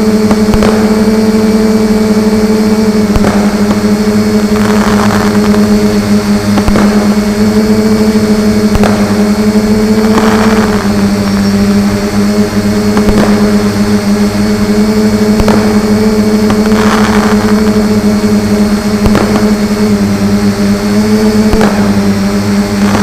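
A loud, steady engine-like drone runs unbroken, with sharp pops every second or two and a few brief hissing, crackling swells on top: fireworks going off behind a running motor.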